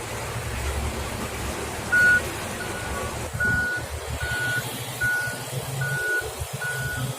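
A vehicle's reversing alarm beeping at a steady pace, starting about two seconds in, over a steady low rumble.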